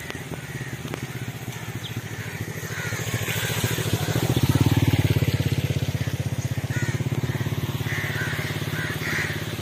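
An engine running with a steady fast pulse, growing louder to a peak about halfway through and then holding a little lower.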